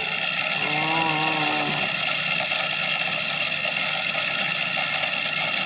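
Tripod game feeder's spin-plate motor running on a test cycle, flinging corn out. It makes a steady whine with a hiss of scattered kernels.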